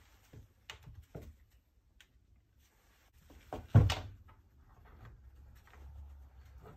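Parts being handled on a wooden workbench: a few light clicks and taps in the first second and a half, then one much louder thunk on the bench about four seconds in, followed by faint rustling of gloved hands.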